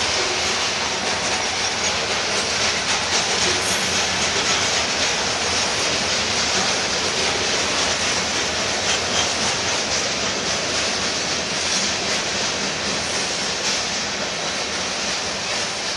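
Freight train's covered hoppers and boxcars rolling past: steady noise of steel wheels running on the rails.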